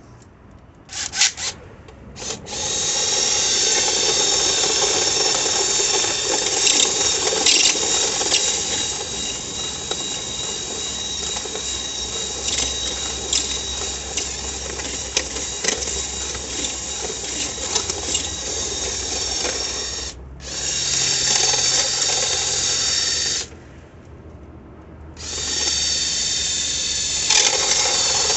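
Power drill spinning a rotary dryer-vent cleaning brush to clear lint from the duct. It starts with a few short trigger bursts, then runs steadily, stopping briefly twice.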